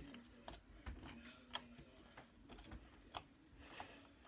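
Faint, irregular clicks and small pops of four fingers poking a blob of slime on a wooden desk, about one or two a second.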